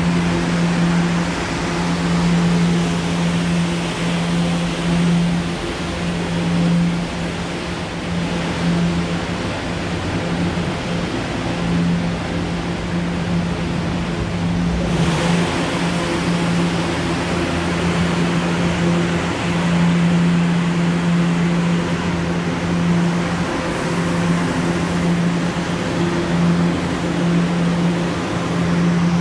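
Kawasaki R211 subway train moving slowly past a station platform: a steady low hum with a constant tone over the rumble of wheels on rail.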